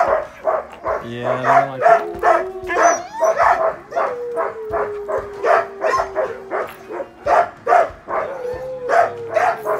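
A pack of harnessed sled dogs barking and yipping rapidly, about three barks a second, while one dog whines in long drawn-out tones, twice. This is the excited barking and whining of sled dogs eager to run.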